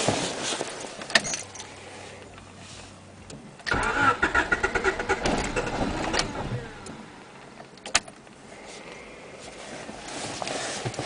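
Honda Civic D16Z6 engine cranking on the starter for about three seconds with a pulsing rhythm, but not catching: a crank-but-no-start. A sharp click follows.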